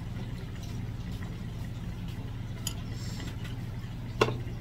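Quiet eating sounds of doenjang jjigae being sipped from a metal spoon over a steady low hum, with one sharp clink of tableware near the end.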